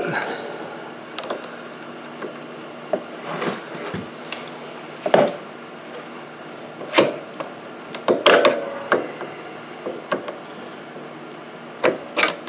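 Scattered metallic knocks and clinks of hand tools against a motorcycle rear shock's lower mounting bolt and linkage as the loosened bolt is pulled out with pliers, with a small cluster of knocks about eight seconds in and another near the end.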